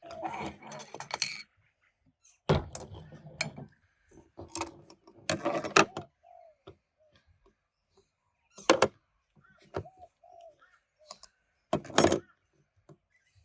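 Metal automatic-transmission parts clanking and clinking as they are handled and taken apart, in several separate bursts of clatter with pauses between.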